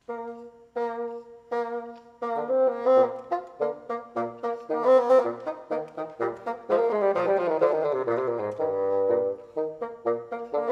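Two bassoons playing a duet: it opens with three short, separated repeated notes, then turns into a busy passage of quick notes over a lower second bassoon line, with a run of notes falling in pitch in the second half.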